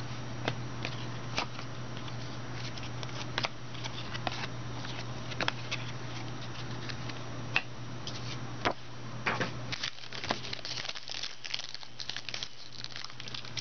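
Trading cards and their plastic wrapping being handled: scattered clicks and taps, then a denser run of crinkling in the last few seconds, over a steady low hum.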